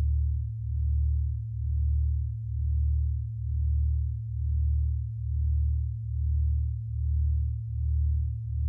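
Low sine-wave tones from a generative electronic sound piece, held steady and throbbing in slow swells about once a second, the swells coming slightly faster near the end.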